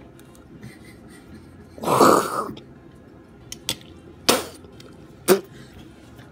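A person coughs hard once, about two seconds in, with a mouthful of capelin caviar and ketchup, followed by a few short, sharp sounds.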